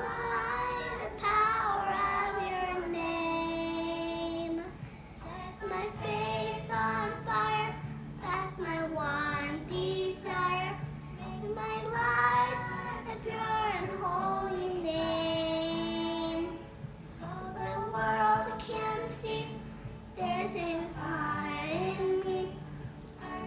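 A young girl singing a worship song, holding several long notes between shorter phrases.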